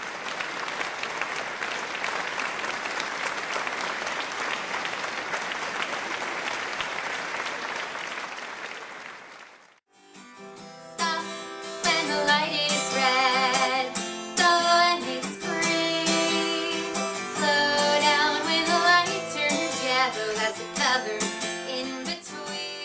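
Applause-like noise fading out over about the first nine seconds. Then a song starts, with a singing voice over plucked guitar.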